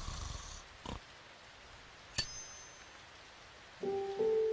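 A low grunt from the cartoon pig at the start, then a single bright metallic ting about two seconds in. Soft piano notes of the score come in near the end.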